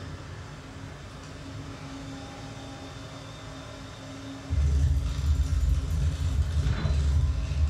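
A steady low machine hum with a faint steady tone; a little over halfway through, a much louder low rumble suddenly sets in and keeps going.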